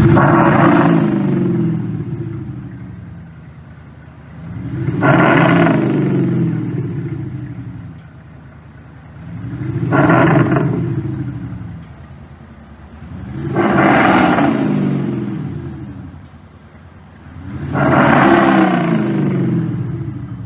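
Simulated sports-car engine sound from a MAXHAUST active sound system's speakers, revved five times, each rev rising in pitch and falling back, about every four to five seconds.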